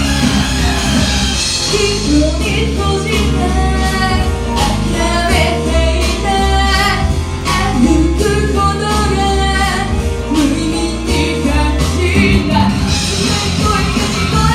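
A female vocalist singing into a microphone over loud, heavy rock music played through the stage speakers. The voice comes in about two seconds in and drops out about two seconds before the end, leaving the band track alone.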